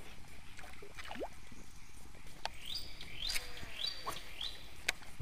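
Riverside forest ambience. About three seconds in, a bird calls four times in quick succession: short high notes that rise and then hold, about half a second apart. A couple of sharp clicks are also heard.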